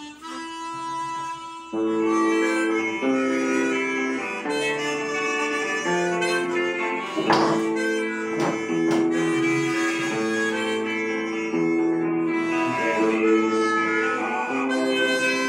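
Harmonica played, with several reeds sounding together in held chords that change about once a second. It starts softly and gets louder after about two seconds, with the player's hands cupped around the instrument.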